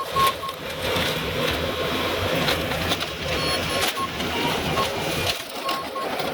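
Heavy demolition machine working on a mobile home: its engine running under repeated clanks, knocks and crunching of torn-apart debris. The low engine rumble drops away about five seconds in.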